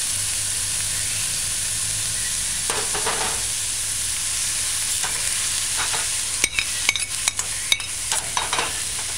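Ackee and onions sizzling steadily in hot oil in a stainless steel skillet, with a little water just added. From about six and a half seconds in, a metal cooking spoon clicks and taps sharply against the pan and plate as diced sweet pepper is scraped in and stirred.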